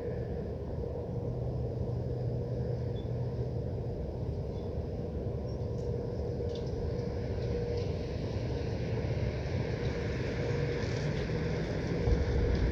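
Steady low industrial rumble from a foundry running at night, with a constant hum through it and a few faint knocks; the rumble swells louder near the end.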